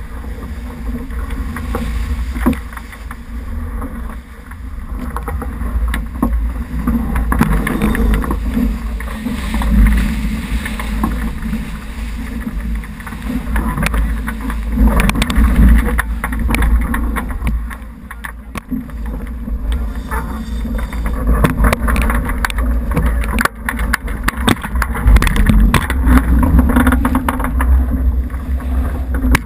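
Water rushing and spraying along the hull of a J80 keelboat sailing fast, with a steady heavy low rumble of wind on the microphone and many short splashes throughout.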